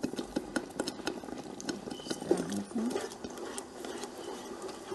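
Blended tomato and pepper sauce cooking in a pot, spattering with many quick pops while a wooden spoon stirs it.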